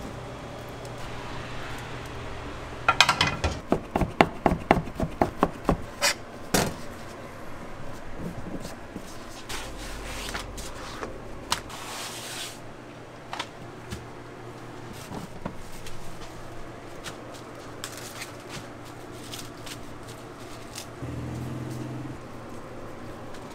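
Kitchen work sounds: a quick run of about a dozen sharp knocks, about four a second, a few seconds in, then scattered quieter clicks and handling noise over a steady low hum.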